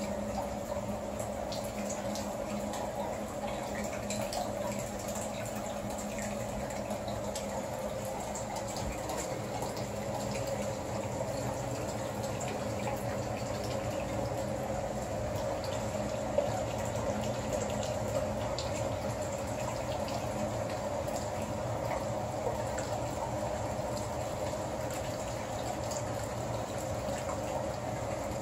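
Steady sound of running water, with one small knock about sixteen seconds in.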